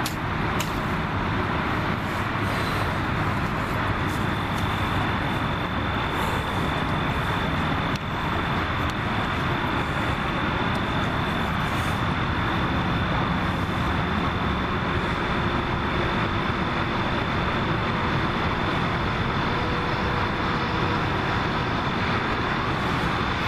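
Steady, even outdoor roar of noise, with a thin, high, steady whine joining about four seconds in.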